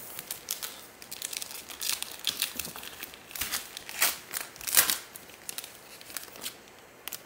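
Wrapper of a Prizm Draft Picks football card pack crinkling and tearing as it is opened by hand: a run of sharp crackles and rips, loudest a little after four seconds in.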